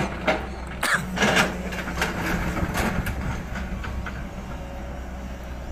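Water pouring through the open spillway gates of the Sardar Sarovar (Narmada) Dam: a steady low rumble, with a few brief knocks in the first three seconds.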